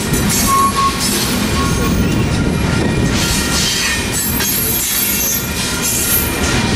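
Loaded coal cars of a long freight train rolling past: a steady rumble of steel wheels on rail, with a short high squeal from the wheels about half a second in.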